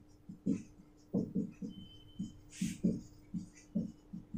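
Marker pen writing on a whiteboard: a run of soft, irregular strokes and scrapes, about two or three a second, over a faint steady hum.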